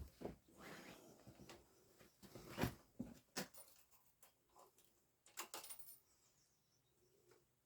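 Near silence broken by a few faint, short clicks and knocks, a small cluster of them about five and a half seconds in, then quiet.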